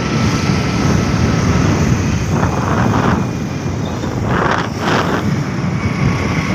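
Steady rumble of a moving vehicle's engine and road noise, with wind buffeting the microphone. Two brief louder hissing swells come about two and a half and four and a half seconds in.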